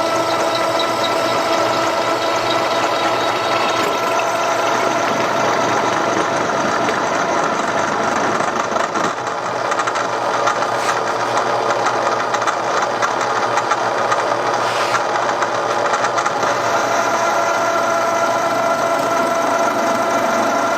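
Milling machine spindle turning a six-flute end mill at about 2,400 RPM, cutting the fins and surface of a cast-iron Harley-Davidson Sportster cylinder head: a steady whine over a dense cutting noise, dipping briefly about nine seconds in.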